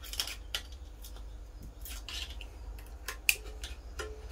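Scattered light metallic clicks and scrapes as a pry tool works a part loose from a Mazda MX-5 Miata engine block, with one sharper tick about three seconds in.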